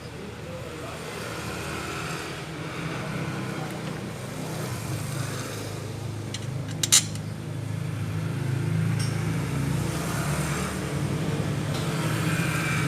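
A motor vehicle engine running and growing gradually louder, with a single sharp metallic clink about seven seconds in.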